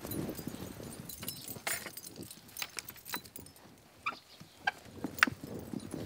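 Metal fastening of a wooden picket gate being worked by hand: a string of sharp clicks and short ringing metallic clinks, the sharpest near the end, as the gate is unfastened and opened.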